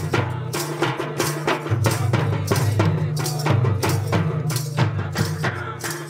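Karam dance music: hand-beaten mandar drums playing a quick, even rhythm of about four strokes a second over a held low melody, fading out near the end.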